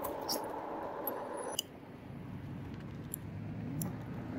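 Electric bike hub motor whining steadily, then cutting off suddenly with a click about a second and a half in as the rider brakes to a stop. Small rattling clicks and a low rumble follow.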